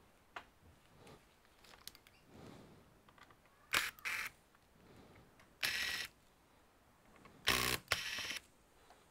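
Camera shutter firing three times, about two seconds apart, each a short two-part snap, with a few faint small clicks before the first.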